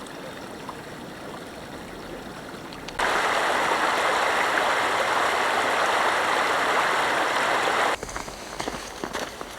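Creek water running in a steady rush. It is much louder for about five seconds in the middle, starting and stopping suddenly. Near the end it drops back to a quieter flow with a few small ticks.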